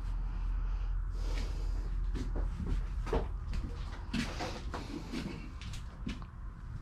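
Clothes hangers being slid along a metal clothing rack: an irregular string of short scrapes and clacks.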